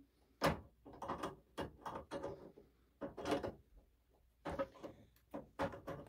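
Insulated pliers clicking and knocking against the high-voltage capacitor terminals and metal chassis of an opened microwave while the capacitor is shorted out to discharge it: a string of irregular short clatters.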